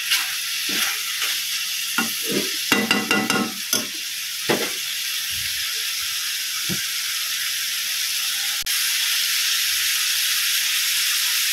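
Mutton liver masala sizzling in a pan, a steady frying hiss, with a spoon scraping and knocking against the pan several times in the first half.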